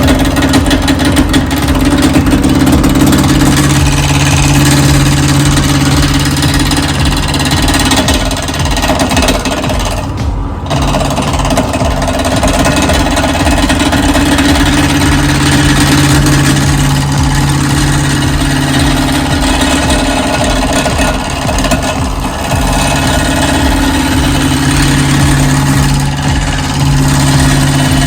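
Wood lathe running while a roughing gouge cuts a square wooden blank, the tool chattering rapidly against the spinning corners as they are rounded off. The loud, continuous rattle goes on throughout, with a steady motor hum that rises and falls.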